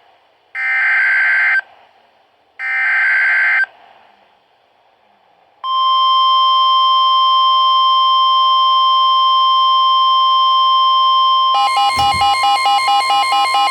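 Emergency Alert System SAME header: two one-second bursts of shrill warbling data tones. After a short pause comes a long steady weather-radio attention tone. Near the end a rapidly pulsing alarm tone is layered over it, announcing a new tornado warning.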